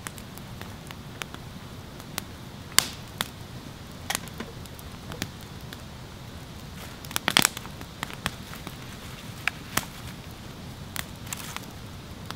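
Wood campfire crackling: irregular sharp pops and snaps over a low steady hiss, with a louder cluster of pops about seven seconds in.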